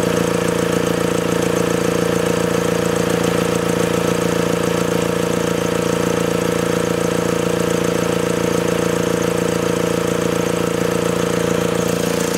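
Volkswagen AHU 1.9-litre TDI four-cylinder turbodiesel, swapped into a VW T25 camper van, idling steadily.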